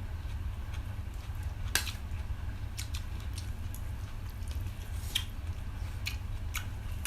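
Close-miked eating sounds: chewing with a few short, sharp wet mouth clicks, the loudest about two seconds in and again about five seconds in, over a steady low hum.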